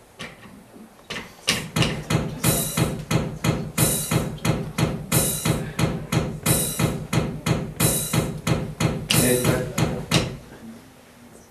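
A steady percussion beat: a fast run of sharp hits in a short pattern that repeats about every second and a third. It starts about a second in and stops near the end.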